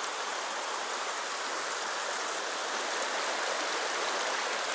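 Shallow river water rushing steadily over rocks in a riffle.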